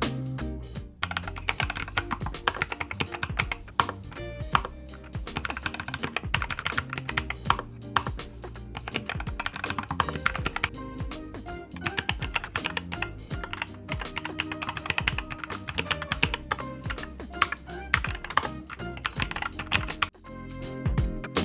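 Fast, continuous typing on a NuPhy Air75 V2 low-profile mechanical keyboard: a dense run of key clicks with background music underneath.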